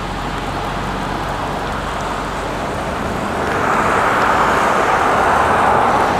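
A car passing on the road, its tyre noise swelling about three and a half seconds in.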